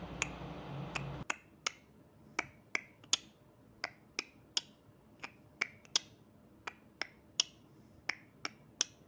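Small sharp clicks and ticks at an irregular pace, roughly two a second, as the eight thin wires of a Cat 6 cable are handled and realigned by hand. A low steady hum under the first second stops abruptly.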